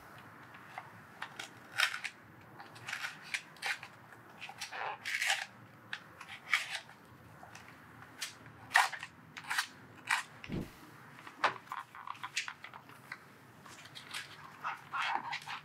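Irregular sharp plastic clicks and snaps, a dozen or more, as tape is cut with a utility knife and the clips of a motorcycle's plastic wiring cover are pried loose.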